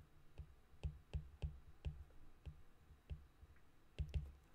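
Stylus tip tapping and clicking on a tablet's glass screen while writing a word by hand: about a dozen quiet, irregularly spaced clicks, with a quick pair near the end.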